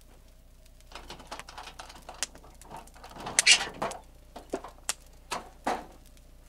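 A camper's exterior compartment access panel being unlatched and lifted off: a string of clicks and knocks, the loudest a scraping rattle about halfway through, then a few sharp knocks near the end.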